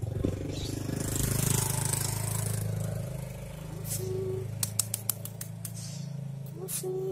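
An engine running steadily with a low, even hum, with a few sharp clicks around the middle.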